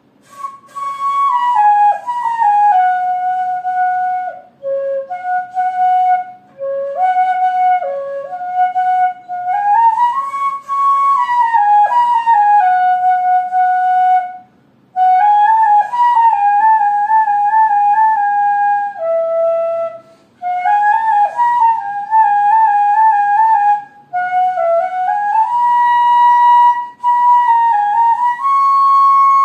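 Background music: a single-line melody played with slides and ornaments between notes, in phrases broken by several short pauses.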